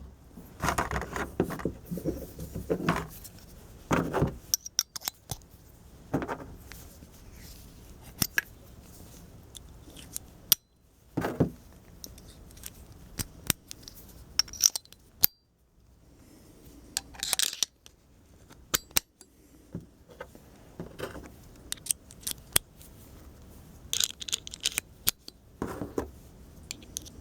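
An 11-in-1 screwdriver being put back together by hand: its metal bits and nut-driver barrels clicking, sliding and knocking as they are fitted into one another and into the handle, with scattered handling clicks and rustles.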